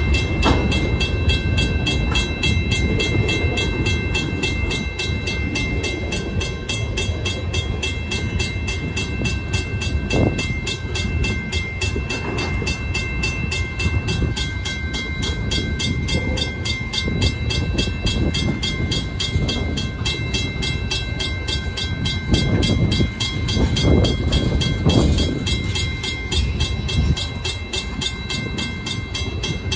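Freight train tank cars rolling past close by: a continuous rumble of steel wheels on rail, with heavier wheel knocks about ten seconds in and again around twenty-three to twenty-five seconds. Thin, steady high tones ring above the rumble.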